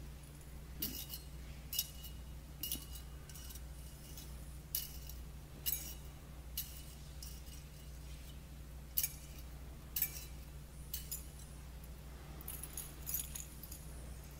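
Light metallic clinks and jingles, about a dozen at irregular intervals, each ringing briefly, over a faint steady low hum.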